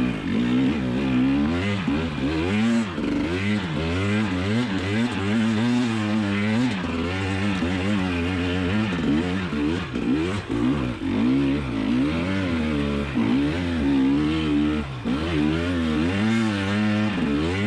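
2020 KTM 300 XC TPI's fuel-injected two-stroke single-cylinder engine revving up and down under load as the dirt bike climbs a trail, its pitch rising and falling every second or so with the throttle.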